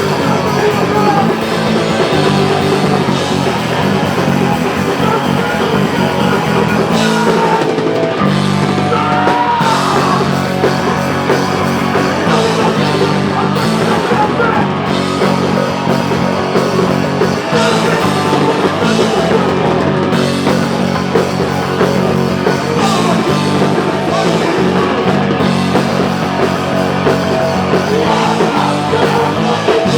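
Live rock band playing loud: electric guitars, bass and drum kit, with some singing.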